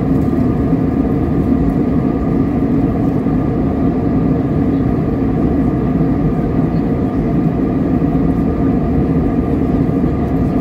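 Steady cabin noise of an airliner in flight, jet engines and rushing air heard from inside the cabin at a window seat: an even, unchanging rush with a faint steady hum in it.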